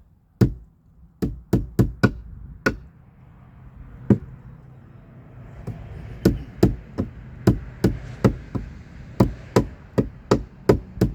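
Hammer blows on a nail in a wooden step, driving it down: a few scattered strikes, a pause of about two seconds, then a steady run of blows about two to three a second.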